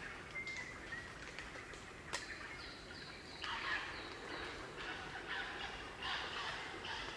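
Crimson rosellas calling: a few thin, high piping notes, then from about halfway harsh, scratchy chattering calls in quick repeated bursts.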